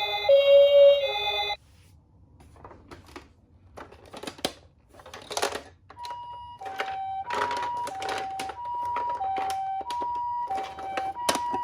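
A short electronic jingle stops about 1.5 s in, followed by scattered clicks and rattles. About six seconds in, a toy ambulance's electronic Japanese-style 'pee-poh' siren starts, alternating steadily between a high and a low tone about every 0.6 s.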